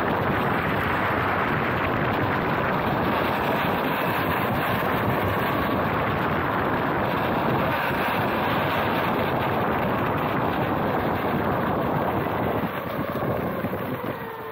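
Electric skateboard riding on pavement on 127 mm airless TPU wheels: a steady rush of wind on the board-mounted microphone mixed with wheel rolling noise and a faint motor whine. Near the end the sound eases off and the whine falls in pitch as the board slows.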